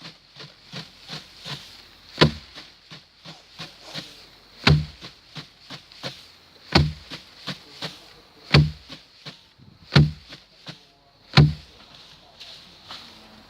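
Rice being threshed by hand: sheaves struck hard, one heavy thud about every two seconds, six in all, with lighter ticks and rustles between the strokes.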